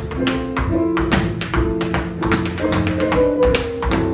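Tap shoes striking a wooden floor in quick, uneven clusters of sharp taps, an improvised tap dance over a jazz recording.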